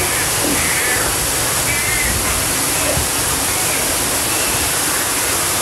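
Heavy rain falling in a steady, even rush.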